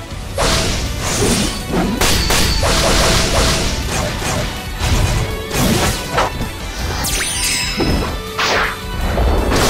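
Fight sound effects over background music: repeated crashing impacts and whacks, one after another, with whooshes between them.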